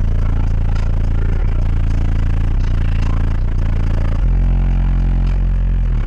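Very loud bass from four Skar ZVX 18-inch subwoofers in a fourth-order wall enclosure playing music. About four seconds in, a deeper, louder bass note comes in and holds until nearly the end.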